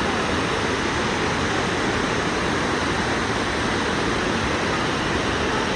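Steady roar of water pouring over the Lechfall, the weir waterfall on the Lech river, an even rushing noise with no change in level.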